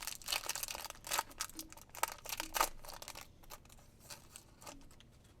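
A trading-card pack's wrapper being torn open and crinkled by hand: dense crackling for about three seconds, thinning to a few soft rustles near the end.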